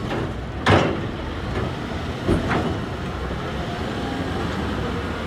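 Heavy construction machinery running with a steady low rumble, broken by a loud sharp knock about a second in and a weaker one a little over two seconds in.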